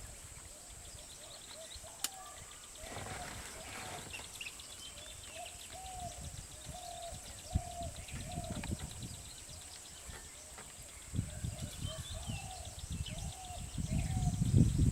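Outdoor ambience with a bird calling over and over in short rising-and-falling notes, about two a second, and fainter high chirps behind it. A steady high whine runs under it, and low rumbling swells near the end.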